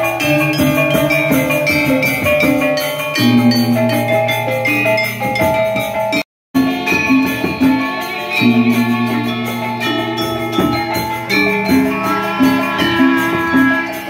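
Balinese gamelan playing: bronze metallophones struck with mallets in fast, dense patterns over long held low notes. The music cuts out for about a quarter of a second just past six seconds, then carries on.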